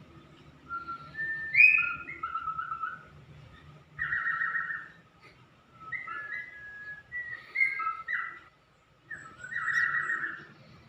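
Cockatiel whistling a tune: a string of short whistled notes and chirps jumping in pitch, with two longer notes held in a fast warble, about four seconds in and near the end.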